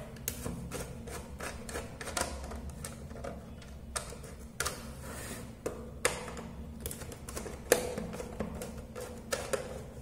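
Small screwdriver turning the screws on the faceplate of a switch-and-socket extension board: irregular sharp clicks and ticks of metal on the screw heads.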